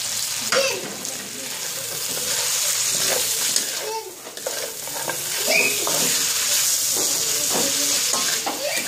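Roasted pork pieces sizzling in a hot wok while a wooden spatula stirs and turns them. Irregular scrapes and light knocks of the spatula sit over a steady frying hiss, which dips briefly about four seconds in.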